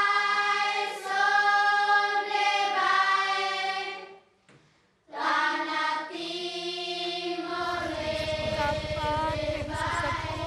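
Sung vocal music: a high voice holds long, steady notes in two phrases, with a short pause between them about four and a half seconds in. A low, rapidly pulsing accompaniment comes in about seven and a half seconds in, under gliding, ornamented notes.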